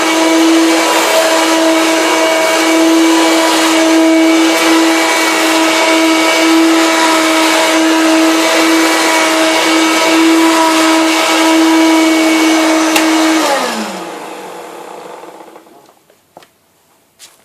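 Hoover Turbo Power Junior U1222 vacuum cleaner running with a steady motor whine. About thirteen seconds in it is switched off, and the motor winds down with a falling pitch over a couple of seconds. A few faint clicks follow near the end.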